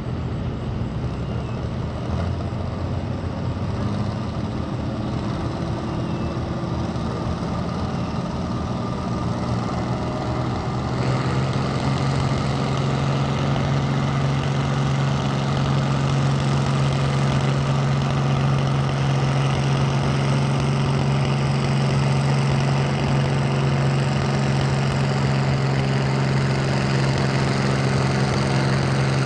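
Pulling tractor's engine running steadily at idle. About eleven seconds in it steps up to a higher, louder steady speed and holds there.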